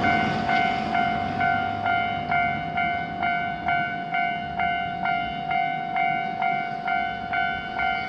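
Japanese railroad crossing's electronic warning bell ringing steadily, about two dings a second, as the crossing closes for an approaching train.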